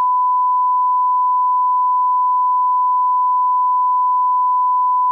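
A loud, steady electronic beep: one pure tone held at a single unchanging pitch, the plain test-tone bleep laid onto the soundtrack by an editor.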